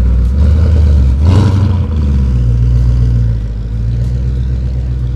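Ford Mustang Shelby GT500's supercharged V8 exhaust as the car pulls away at low speed. It swells louder over the first two seconds, peaking about a second and a half in, then runs steadily as the car moves off.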